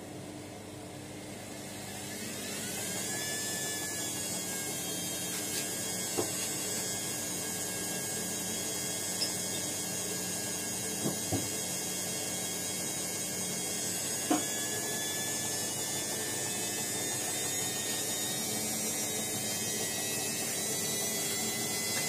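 Hotpoint Ariston front-loading washing machine spinning up near the end of its quick 30-minute wash. The motor's whine rises in pitch over a couple of seconds, then holds at a steady high spin, with a few light clicks.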